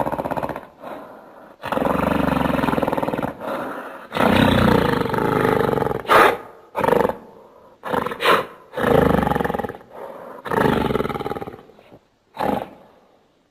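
Giant-ape monster roar sound effects built from King Kong roars: a series of long, rough roars broken by short, sharp shrieks, the last one near the end.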